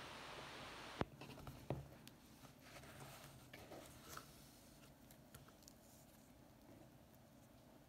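A watch presentation box being opened: a sharp click about a second in as the lid comes free, a second knock shortly after, then faint rustling and small clicks as the wristwatch is lifted off its cushion. A steady hiss stops abruptly with the first click.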